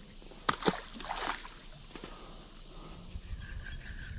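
Insects chirring steadily in the background. About half a second in come two sharp clicks and then a brief splash as a released largemouth bass goes back into shallow, weedy pond water. Low handling rumble follows near the end.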